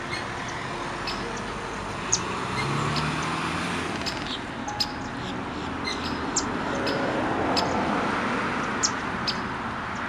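Steady outdoor background hiss with scattered short, high-pitched bird chirps, a couple of them sharper and louder than the rest.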